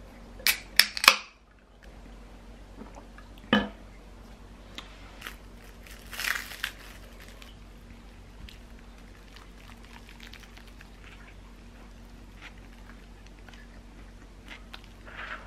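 A carbonated drink can clicks and pops open with a few sharp snaps near the start, and there is a single knock a few seconds later. A crunchy bite into a toasted sandwich follows, its paper wrap crinkling, then quiet chewing.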